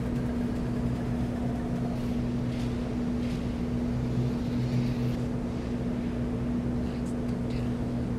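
Steady low electrical hum with a constant pitched tone, heard as room tone.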